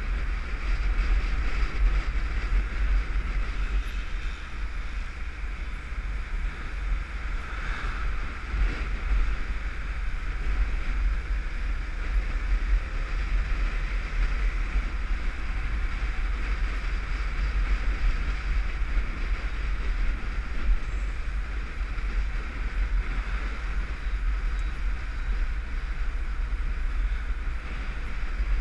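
Riding a motorcycle at steady town speed: a continuous deep wind rumble on the bike-mounted camera, with engine and road noise mixed in, holding steady throughout.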